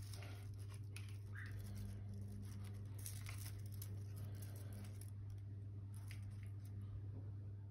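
A steady low hum, with scattered light clicks and leafy rustling as a mint plant is handled and pressed into a plastic flowerpot resting on a glass aquarium lid.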